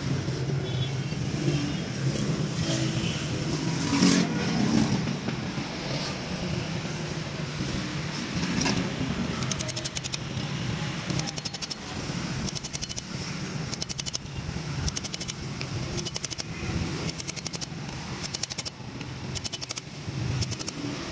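Hand tools working on a car's brakes: bursts of rapid metallic clicking, repeated from about halfway through, over a steady low hum.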